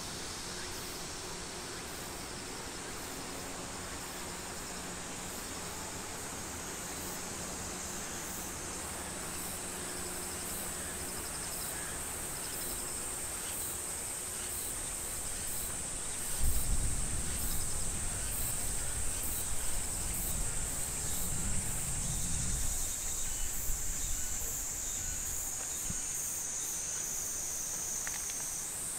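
Insects calling in a steady, high-pitched chorus, with a second, slightly lower insect song joining at times. A little past halfway a low rumble comes and goes for about six seconds.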